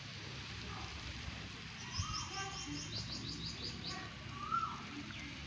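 A bird's quick series of about a dozen short high chirps, lasting under two seconds near the middle, over a steady background hiss, with a few lower calls around it.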